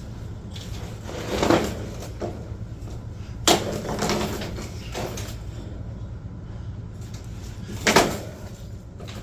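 A few knocks and clunks, two of them sharp and several seconds apart, over a steady low hum.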